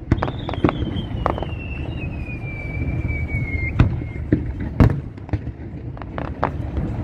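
Fireworks going off: irregular sharp bangs, the loudest about four and five seconds in, with a long whistle sliding slowly down in pitch over the first few seconds.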